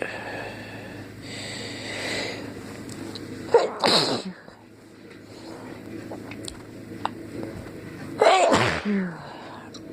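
A man sneezing twice, about four and a half seconds apart, the sneezes brought on by tickling the inside of his nose with a cotton swab.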